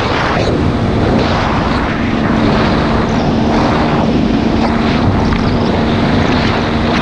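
Two-stroke enduro motorcycle engine running under heavy wind noise on the microphone, settling to a steady pitch from about a second and a half in.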